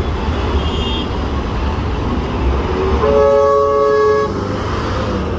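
Heavy street traffic with a steady engine rumble. About three seconds in, a vehicle horn honks once and holds for about a second.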